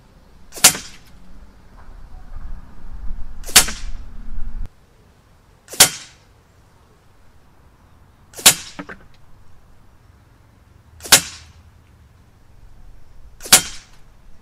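Six shots from a .177 Umarex UX Syrix gas-ram break-barrel air rifle, each a single sharp crack, spaced about two to three seconds apart.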